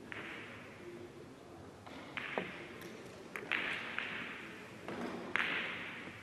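A cue strikes the cue ball on a carom billiards table, followed by a series of sharp clicks and knocks as the balls hit each other and rebound off the cushions. The loudest impact comes near the end.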